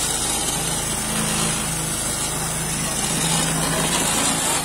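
Small ZAMCO motorcycle engine on a home-built motorized hand cart, running steadily at idle through its chrome exhaust.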